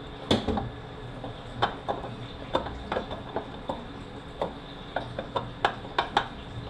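Light metallic clicks and taps, irregular and about one or two a second, of hand tools and parts being handled during teardown of a Mercedes 722.9 automatic transmission.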